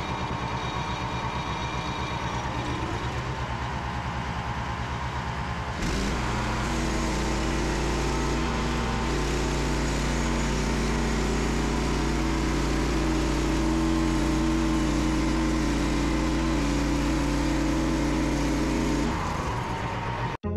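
Frontier OS27 portable sawmill's small petrol engine running. It goes from a lower, pulsing speed up to a higher, steadier speed about six seconds in, holds there, and drops back near the end.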